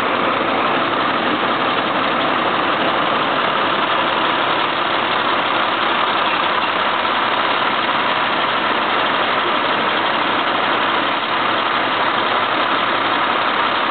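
Dump truck engine running steadily at idle while the truck creeps forward onto the print block.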